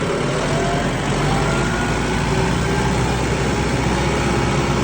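An engine running steadily at a constant speed, with a low hum and a broad, even noise over it.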